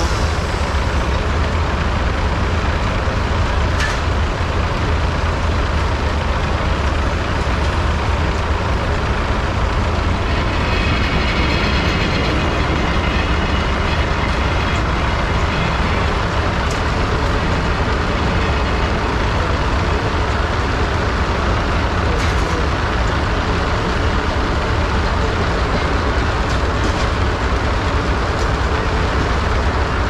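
Belt-driven circular sawmill running, with a steady low machinery rumble.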